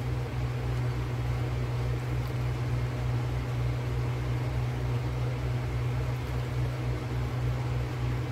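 A steady low mechanical hum from an electric motor, throbbing about four times a second.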